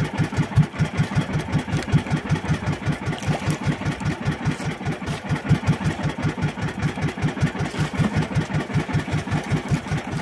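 Small engine of an outrigger fishing boat running steadily, a regular beat of about five pulses a second.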